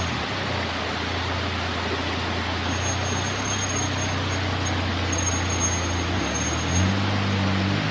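Suzuki Jimny JB23's 660 cc three-cylinder turbo engine running at low revs as it crawls over creek-bed boulders, the revs rising about six seconds in, with a steady rush of water underneath.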